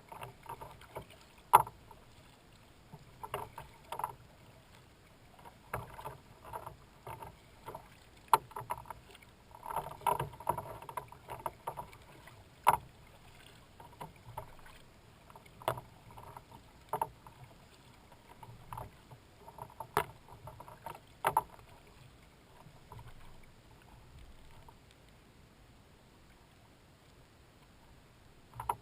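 Kayak paddle strokes in the water: irregular splashes and sharp slaps every second or two, dying away for the last several seconds.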